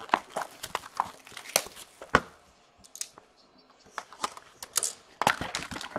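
Plastic wrapping on a sealed trading-card box being torn open and crinkled: irregular sharp crackles, a lull about halfway through, then denser crinkling near the end.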